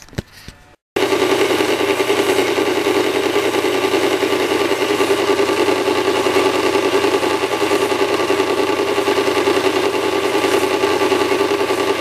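Horizontal metal-cutting band saw running steadily as its blade saws through a thick steel plate. The sound starts abruptly about a second in and holds even throughout.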